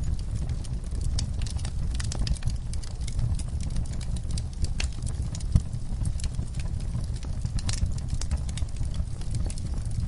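Wood fire burning in a fireplace: a steady low rumble of flames with frequent irregular crackles and pops, one sharper pop about halfway through.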